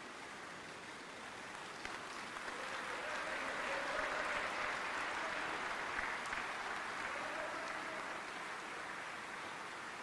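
Audience applauding. The clapping swells about two seconds in, is loudest in the middle and eases off toward the end.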